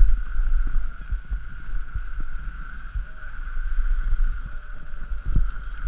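Wind buffeting the microphone of a camera moving fast down a snowy ski run behind mountain bikers, heard as an uneven low rumble with scattered low thumps, over a steady high-pitched tone.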